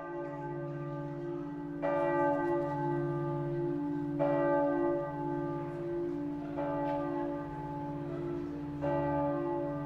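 Outro music of ringing bell tones, struck four times at even intervals of a little over two seconds, each strike decaying over a steady low drone.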